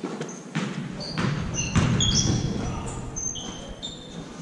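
Basketball dribbled on a hardwood gym floor, four bounces about 0.6 s apart with the loudest about two seconds in. Short high sneaker squeaks on the hardwood are scattered through it.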